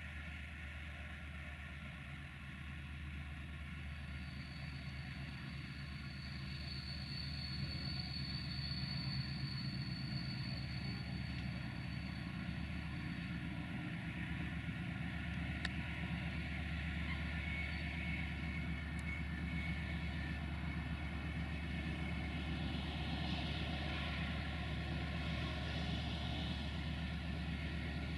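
Diesel locomotive of CFR class 64 idling, a steady low engine hum that grows a little louder about a quarter of the way in. A thin high whine sounds for several seconds over the hum.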